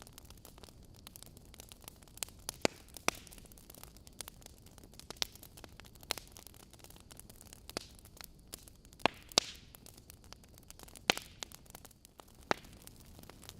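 Burning logs crackling in a fireplace: irregular sharp pops and snaps, a few louder ones, over a soft steady hiss of the fire.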